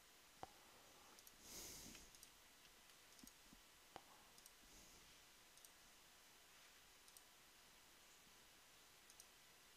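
Near silence broken by a few faint, scattered computer mouse clicks, with a short soft hiss about one and a half seconds in.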